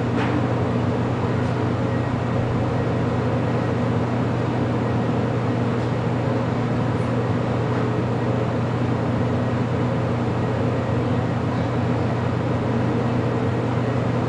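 Steady mechanical hum with a deep drone and fainter higher tones above it, even in level.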